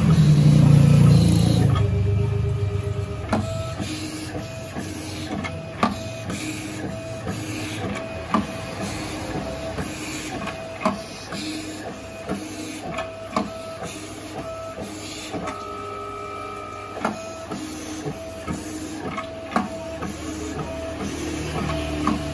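Rhinotec vinyl cutting plotter contour-cutting a sheet of printed sticker labels. Its carriage motors run in short whining tones that start and stop as the knife moves, with a louder low rumble in the first couple of seconds and a sharp click every couple of seconds.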